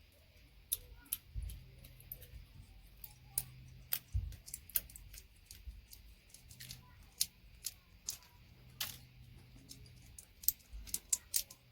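Irregular small metallic clicks and ticks as thin gold-plated connector pins are twisted and pulled out of RJ45 ethernet jacks with side cutters.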